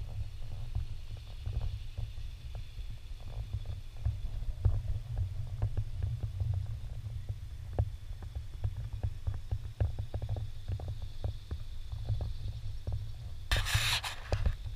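Wind buffeting the camera microphone: a steady low rumble with scattered light ticks, and a brief louder rush of noise about a second before the end.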